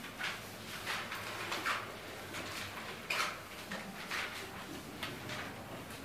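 Lecture-room background noise: a dozen or so faint, irregular short rustles and soft clicks over a low steady hum.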